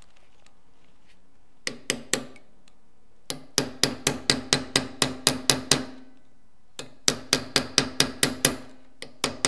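A hammer drives a steel punch against the washer under the shaft nut of a 1958 VW split-case gearbox, flattening the washer so the nut can be tightened. It comes as sharp metallic taps in bursts, about four a second, with a pause near the middle. Each tap leaves a short ring from the steel gear shaft.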